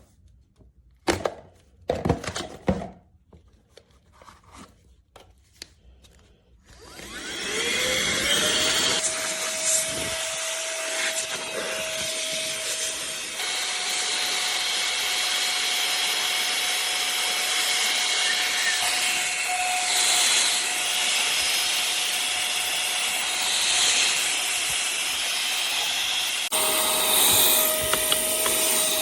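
Tiazhan mini cordless handheld vacuum cleaner: a few clicks and knocks of handling, then its motor is switched on about seven seconds in. It spins up to a steady whine with a loud rush of air, and its pitch steps up slightly partway through and back down near the end.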